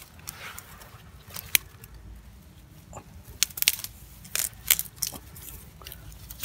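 Dry grass stems and twigs crackling and snapping as a hand pushes through them, in a handful of sharp cracks: one about one and a half seconds in, then a cluster between about three and a half and five seconds in.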